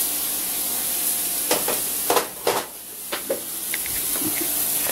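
Polish sausage sizzling in a frying pan, a steady high hiss, with a few sharp knocks of handling about halfway through.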